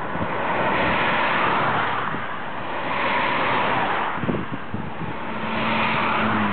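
Gusts of wind buffeting the microphone. Near the end a car engine grows louder as a black second-generation Volkswagen Scirocco approaches and passes close by.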